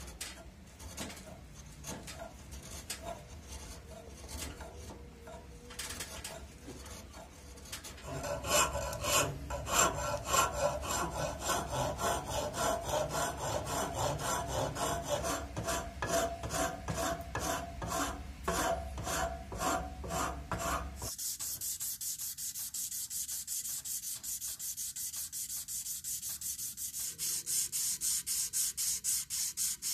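Hand tools working a jackfruit-wood axe handle. At first a chisel pares the wood in scattered scrapes. From about 8 s there are steady rubbing strokes about twice a second, and from about 21 s a blade scrapes the end of the handle in quicker, hissier strokes.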